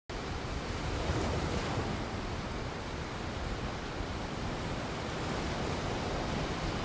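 Sea waves washing onto a beach: a steady rushing noise with no distinct breaks between waves.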